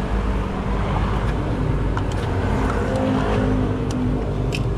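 Street traffic: a motor vehicle's engine running close by over a steady low road rumble, its note strengthening a little in the middle. A few light clicks sound over it.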